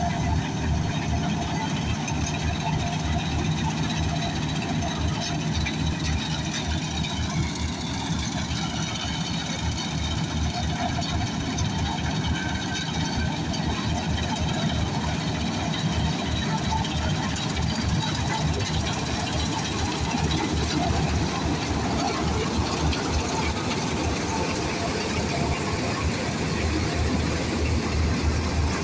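Vishal 435 combine harvester's diesel engine running steadily under load, with the rumble of its cutter bar and threshing drum as it harvests paddy. It grows somewhat louder as the machine draws close.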